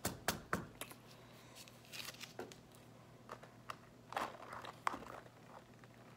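A plastic iced-coffee cup and drinking straw being handled: scattered crinkles and small clicks as the straw is worked into the cup's lid and the cup is picked up.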